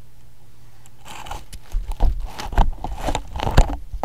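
A French lop rabbit gnawing and nibbling on the camera right at the microphone: irregular crunching clicks and close bumps that start about a second in.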